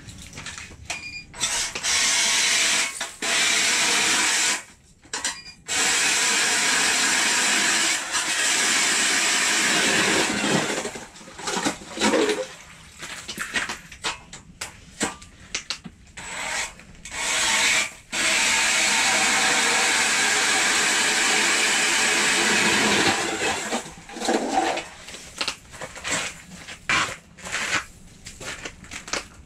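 Power ice auger boring through lake ice: it runs in several long bursts of a few seconds each. Short knocks and scrapes of ice chips and slush come between the bursts.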